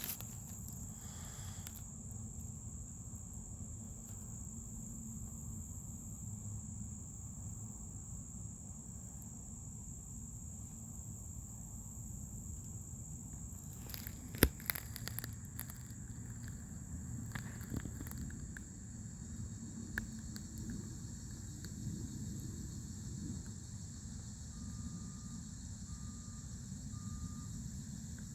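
Newly installed Fluidmaster 400A toilet fill valve running and making an unwanted noise: a steady low rush of water with a constant thin high whine over it. A few sharp clicks come about halfway through.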